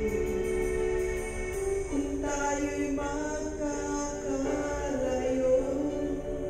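A woman singing a slow Filipino love ballad into a karaoke microphone over a music backing track, holding long notes.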